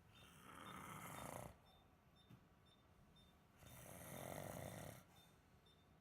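A person snoring during sleep endoscopy: two snores about two seconds apart, each lasting about a second and a half.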